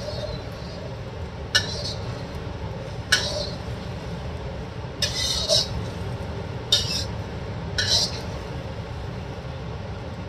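Metal spatula scraping and clinking against a wok as beaten eggs fry in oil, about six short strokes spread over a steady low hiss.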